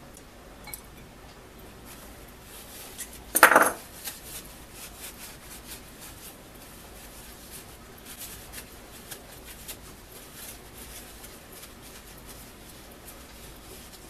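Small metal parts clattering against a glass jar, one brief loud clatter, followed by scattered light clicks and handling noise.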